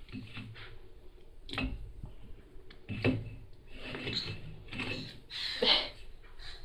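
A baby knocking and scraping a framed picture against a metal baby gate on carpet: a few irregular knocks with rubbing and shuffling between them.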